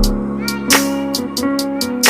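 Background music: plucked guitar notes over a steady beat with hi-hat strokes.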